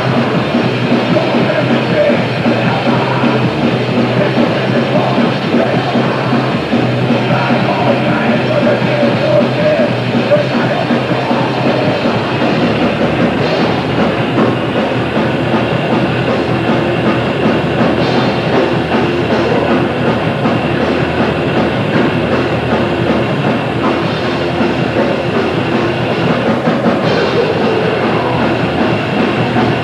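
Grindcore band playing live: distorted guitars, bass and drums in a dense, loud, unbroken wall of sound.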